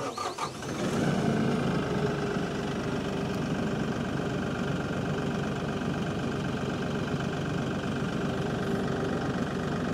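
LS MT342 compact tractor's diesel engine cranked by the starter and catching within about a second, warm-started without glow-plug preheat, then idling steadily at about 1,000 rpm.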